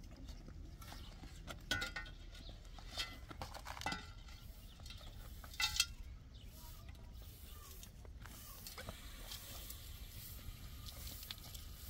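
Scattered brushing strokes and short knocks: a straw hand broom sweeping dusty ground and concrete, and a plastic basin handled in a concrete trough. A low, steady rumble runs underneath.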